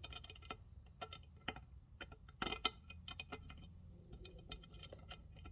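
Light clicks and taps of small parts being handled and fitted into a Ford 6R80 automatic transmission's valve body, irregular, with two louder clicks about two and a half seconds in.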